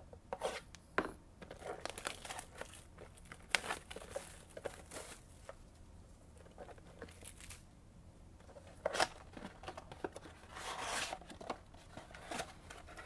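A sealed Bowman baseball card box being torn open and handled by hand: irregular tearing and crinkling with sharp crackles, and a longer rustle about eleven seconds in.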